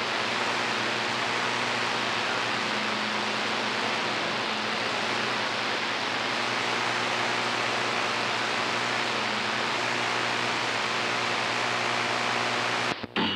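Steady static hiss from a CB radio receiver, with a faint constant hum underneath. Near the end the hiss breaks off briefly just before a voice comes in.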